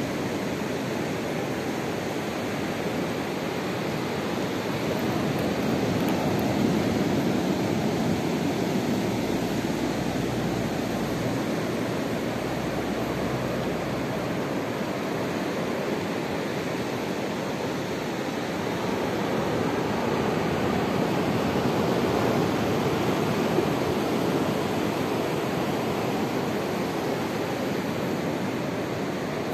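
Ocean surf breaking on a sandy beach: a steady wash of noise that swells louder twice as larger waves come in.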